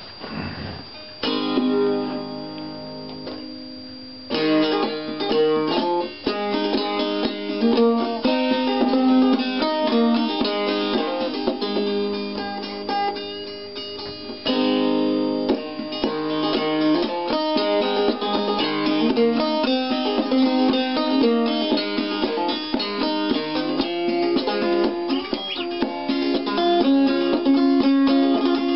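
Homemade five-string banjo built from a Flying A gas can, with a tailpiece made from a bulldog clip, being played. After a moment of handling there is a single ringing strum about a second in, then a steady picked tune from about four seconds in that eases briefly about halfway.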